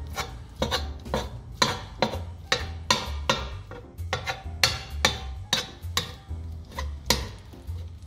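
A cooking utensil striking the inside of a vitrified steel pot about three times a second as ground meat is broken up in it, over background music with a steady low beat.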